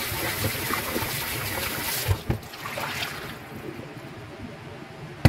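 Tap water running hard into a stainless steel bowl of meat chunks in a steel sink while they are rinsed by hand. About two seconds in there is a knock of the bowl, and the sound drops to a quieter trickle as the rinse water is poured off the meat.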